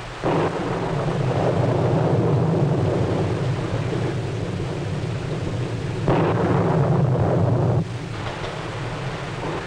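Thunderstorm on an old film soundtrack: a thunderclap breaks in suddenly and rumbles on over heavy rain, with a second louder surge of thunder about six seconds in, then it falls back to a steadier storm noise.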